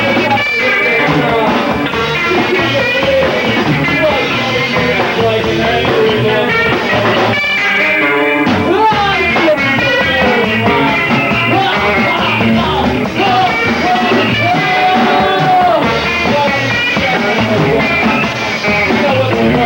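Rock band playing live: drums with cymbals and guitars, loud and continuous.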